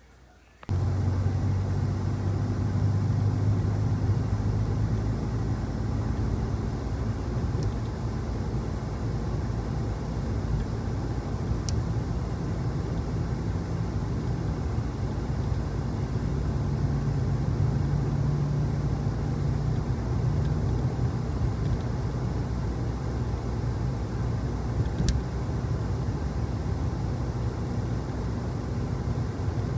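Steady engine and road rumble inside a moving car's cabin, with a low hum; it starts abruptly just under a second in.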